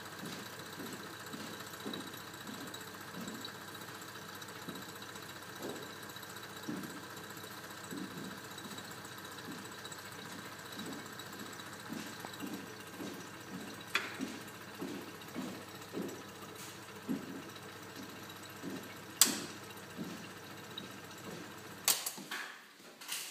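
Vacuum pump running steadily as it draws the air out of a bell jar, with an irregular low knocking about once a second. Two sharp clicks come partway through, and the low hum drops out near the end.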